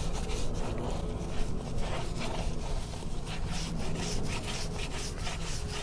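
Hands and a soapy sponge rubbing over a rubber scooter tyre's tread in quick repeated strokes, a steady scratchy scrubbing. This is a soapy-water leak check on a freshly plugged tubeless tyre.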